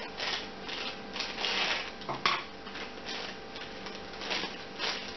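Thin clear plastic bag crinkling and rustling in the hands as it is opened to take out a doll stand, in irregular bursts with a sharper snap a little over two seconds in.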